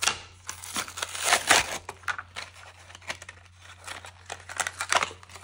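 Plastic blister packaging crinkling and crackling as it is handled and opened, a string of irregular crackles with a few louder ones.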